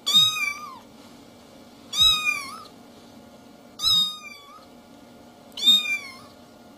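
A cat meowing four times, about two seconds apart, each meow short and dropping in pitch at its end.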